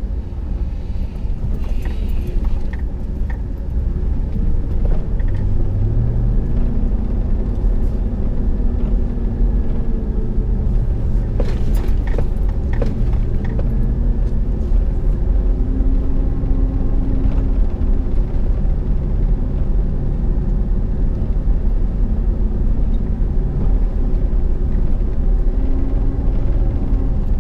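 Ram Power Wagon pickup's Hemi V8 driving up a gravel road, heard from inside the cab: a steady low rumble of engine and tyres on gravel, with the engine note rising and falling as it climbs and a few knocks and rattles about halfway through.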